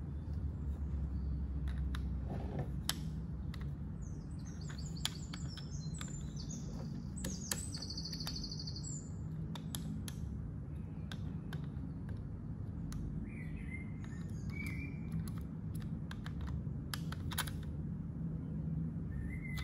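Scattered small plastic clicks and taps from handling a pen-type voltage tester against a plug socket, over a steady low background rumble. Birds chirp in the background, with a short trill near the middle and more chirps in the second half.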